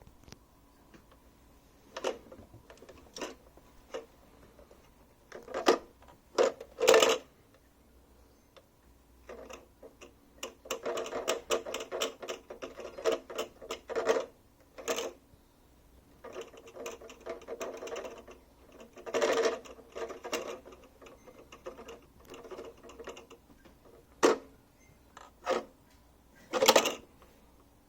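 Fan heater rattling in irregular bursts, some short and sharp, others a rapid clatter lasting a few seconds, with quiet gaps between. The rattle appears to come from a broken mount for the fan or motor.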